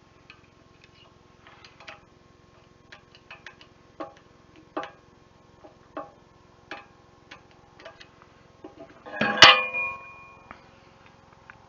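Steel parts and hand tools clinking against each other: a string of light metallic taps, then one loud ringing clang about nine seconds in that dies away over about a second.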